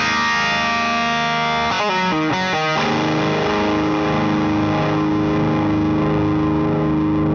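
Distorted electric guitar played through an LPD Pedals Sixty8 Deluxe pedal into a Satellite Neutron amp: a few quick chord changes, then a final chord left ringing from about three seconds in.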